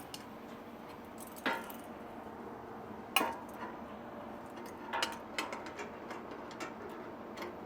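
Light metal clinks and knocks, a handful of separate strikes with the sharpest about three seconds in, as a steel weld-on fitting is handled and reseated on a steel oil pan to get it sitting flat.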